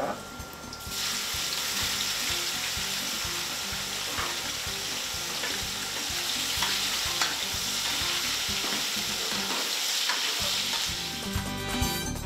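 Cubes of beef sirloin frying with garlic cloves in hot garlic oil in a wok, a steady sizzle as they are stirred with a spatula. The sizzle starts about a second in, as the meat hits the oil, and stops near the end.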